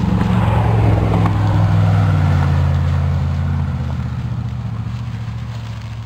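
A motor vehicle passes close by on a busy road: a low engine drone with tyre noise, loudest about one to two seconds in, dropping in pitch as it goes by and then slowly fading away.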